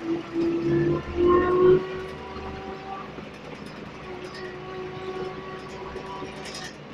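Scania single-decker bus's engine and transmission whining, heard from inside the bus. The whine climbs slightly in pitch and is loudest in the first two seconds as the bus accelerates, then settles into a steadier, quieter tone.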